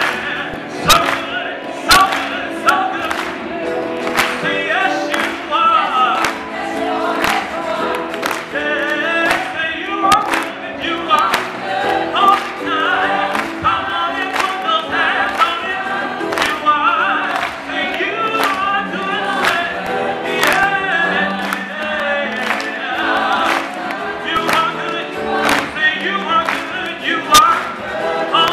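A vocal choir singing with a male lead singer on a microphone, over a steady beat of sharp hits about twice a second.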